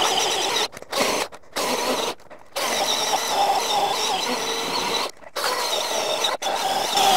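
Milwaukee M18 cordless chainsaw's electric motor whining as the chain cuts into a log, stopping briefly and picking up again several times.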